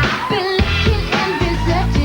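Pop song with a lead vocal singing over a heavy, pulsing bass beat.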